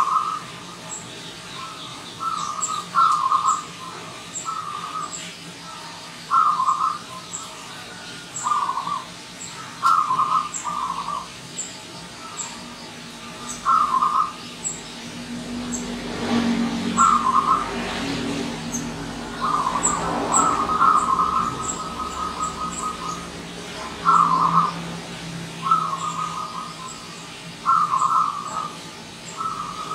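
Zebra dove (perkutut) singing its staccato cooing song: short rolling phrases come one after another every second or two, with a longer run of rapid notes about twenty seconds in.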